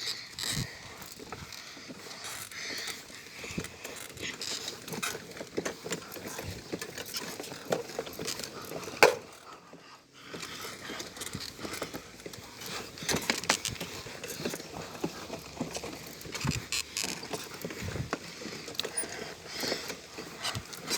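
Irregular rattling and clicking of a pedalled vehicle being ridden along, with one loud knock about nine seconds in.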